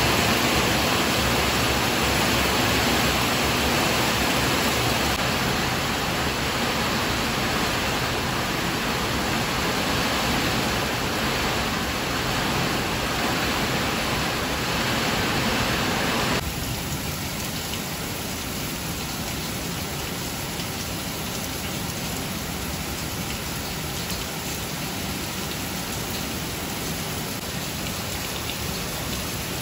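Heavy rain falling steadily, an even wash of drops. About halfway through, the sound drops abruptly to a softer, quieter rain.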